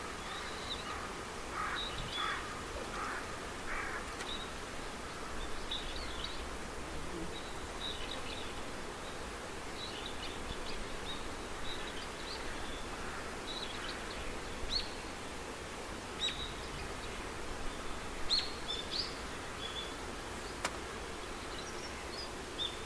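Steady outdoor background noise with scattered short bird chirps, high-pitched and coming every second or so.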